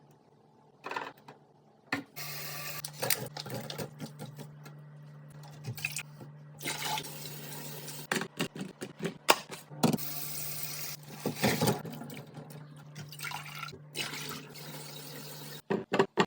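Water running steadily into a container for about thirteen seconds, with a low steady hum under the hiss, starting about two seconds in and stopping just before the end. Clicks and knocks of containers being handled come throughout.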